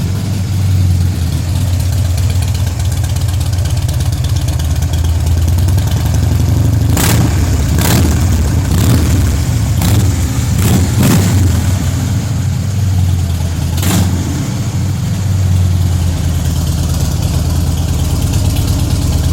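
Harley-Davidson V-twin running through Vance & Hines slash-cut slip-on mufflers, idling just after a start with a deep, steady exhaust note. Several short sharp cracks come through in the middle of the idle.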